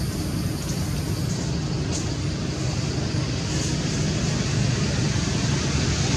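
Steady low mechanical rumble, with a faint high hiss that drops away about a second in.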